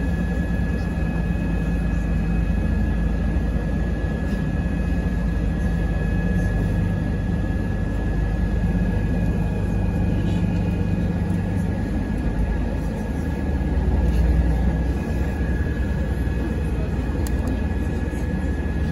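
City bus running over a bridge, heard from inside: a steady low rumble of drivetrain and road with a high, even whine held over it. The rumble swells briefly about fourteen seconds in.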